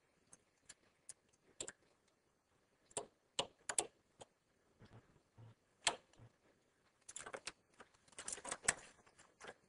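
Faint, scattered small clicks of hand transfer tools against the metal needles of a double-bed knitting machine, as stitches are lifted off and crossed for a cable. The clicks are sparse at first and come thicker in the last few seconds.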